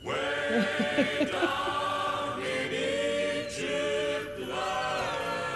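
A choir singing slow, long-held chords.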